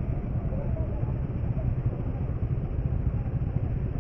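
Motorcycle engines idling, a steady low rumble.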